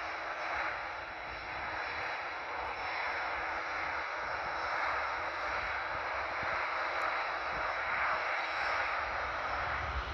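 Airbus A319 jet engines running as the airliner rolls along the runway: a steady rush of jet noise with a faint high whine.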